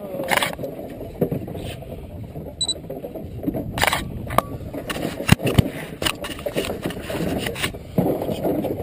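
Scattered sharp clicks and knocks of fishing tackle and boat fittings as rods are worked over the rail, over a steady low rumble of the boat at sea.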